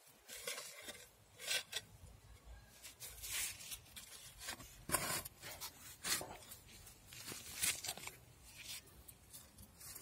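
Digging up potatoes with gloved hands and a garden fork in soil topped with wood-chip mulch: irregular scratchy scrapes and rustles, about one a second.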